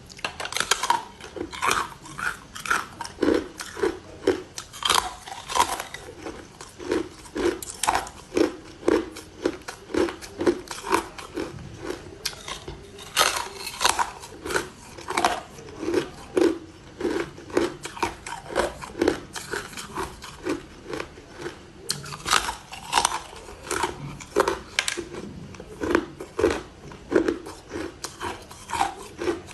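Ice being bitten and chewed close to the microphone: a steady run of crisp crunches, about one to two a second.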